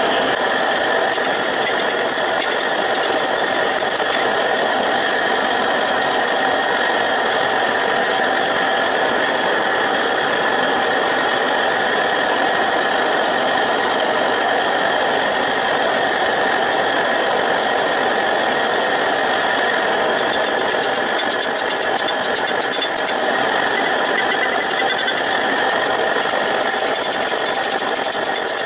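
A small forge running with a steady rushing noise, with a hum in it, while a steel bar heats in the fire.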